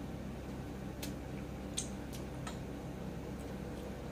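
A few faint, short clicks of eating by hand, chewing and fingers picking at food, over a steady low hum.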